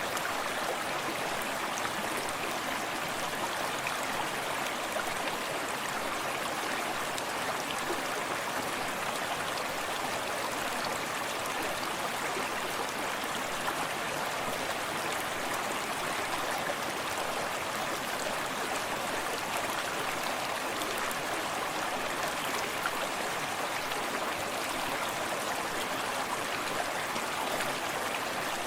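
Forest stream running steadily over rocks, an even rush of flowing water with small splashes and trickles.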